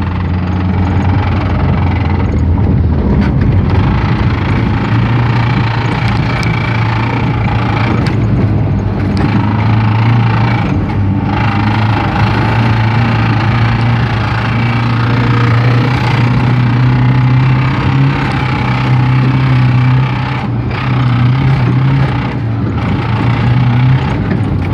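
A VAZ-2107's four-cylinder engine runs steadily with a knock from inside the engine, which the owner calls a terrible knock.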